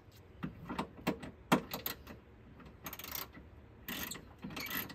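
Scattered small clicks and a few short scraping rustles as a hand works a small tool among the fuses and plastic parts of a pickup's under-hood fuse box.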